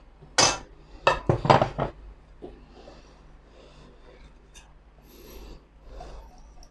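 A kitchen utensil scraping and rubbing against a mixing bowl as flour is worked into thick cake batter. A few loud rasping strokes in the first two seconds give way to softer scraping.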